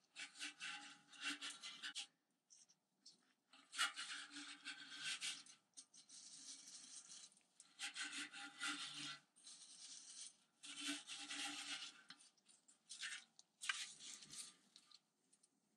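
Nitrile-gloved hands rubbing and turning the rusty metal canister of a hand-crank ice cream maker, giving scratchy rubbing sounds in bursts of a second or two with short pauses between them.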